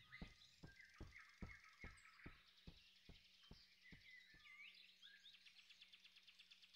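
Quiet forest ambience with faint bird chirps, and the soft pattering steps of a small animated chinchilla walking away, about two and a half a second, growing fainter until they stop about four seconds in.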